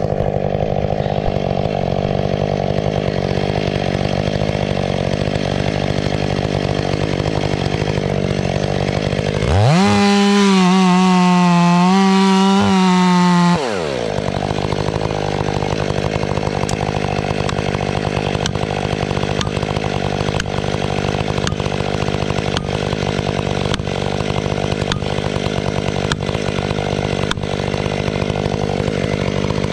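Ported Stihl 500i fuel-injected two-stroke chainsaw engine running. About nine seconds in it revs up sharply to a high, steady full-throttle whine, holds it for about four seconds, then drops back.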